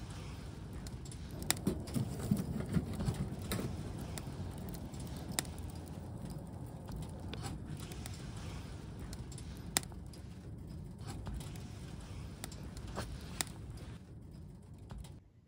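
Wood fire crackling: a steady low rumble with irregular sharp pops, several close together in the first few seconds, then scattered ones.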